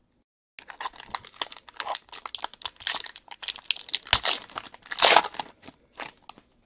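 A football trading card pack's wrapper being crinkled and torn open by hand: a dense run of crackling that starts about half a second in, with the loudest tear about five seconds in.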